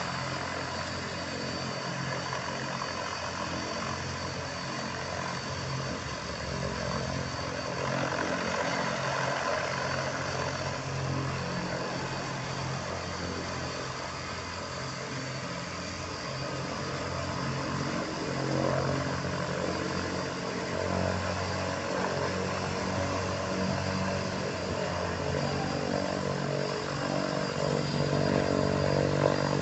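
Thrush 510P agricultural plane's turboprop running on the ground at idle and taxi power: a steady propeller drone with a thin high turbine whine, getting somewhat louder near the end.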